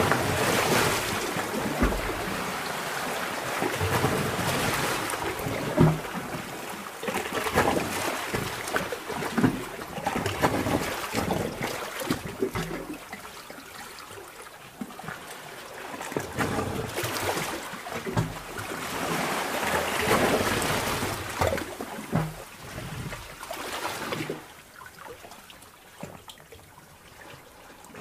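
Sea-cave water ambience heard as if underwater: water surging and gurgling in slow swells that build and ebb every few seconds, with scattered small knocks and bubbling. It grows quieter over the last few seconds.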